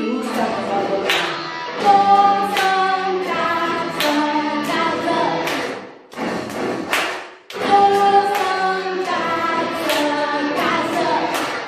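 A woman singing a Catalan song into a microphone over a music backing, with sharp claps landing regularly on the beat and two short breaks between sung lines.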